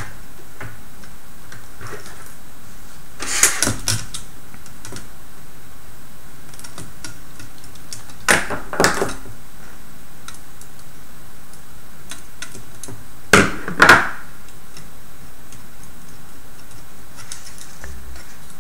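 Three short clusters of sharp clicks and clacks, about five seconds apart, from a small screwdriver and the rover kit's small plastic and metal parts being handled and worked on, over a steady hiss.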